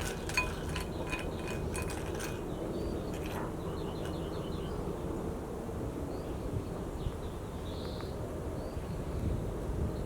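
A quick run of light clinks with a ringing tone in the first couple of seconds, then small birds chirping over a steady outdoor background.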